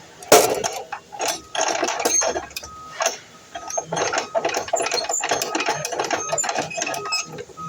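Dense mechanical clattering and rattling, starting about a third of a second in, with a short high squeak repeating about once a second.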